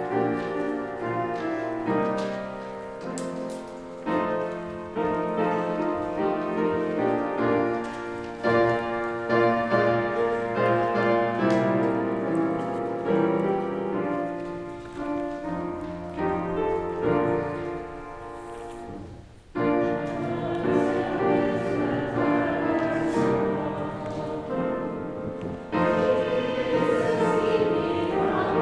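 Church hymn number 248, played in sustained chords on a keyboard instrument, with singing. The music drops out briefly about twenty seconds in and comes back louder.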